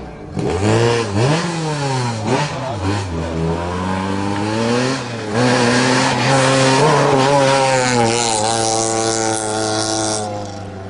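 Rally cars at full throttle on a gravel stage: an engine revs up and down through quick gear changes in the first few seconds, then a car approaches with revs climbing steadily. Near the end it passes close with a loud hiss of sprayed gravel before the sound falls away.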